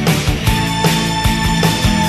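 Background music with a steady drum beat, in a rock style.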